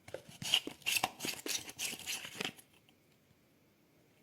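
Quick rustling and crackling handling noises, a dense run of small clicks, lasting about two and a half seconds and then stopping.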